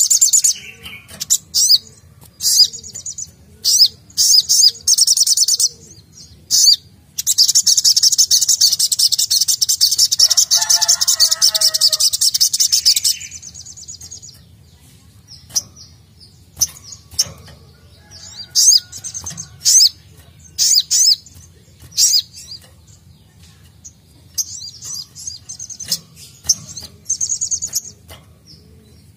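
Caged sogok ontong (sogon) sunbird singing: rapid high-pitched chirping phrases, a long unbroken stretch of song from about seven to thirteen seconds in, then scattered short chirps and another run of song near the end.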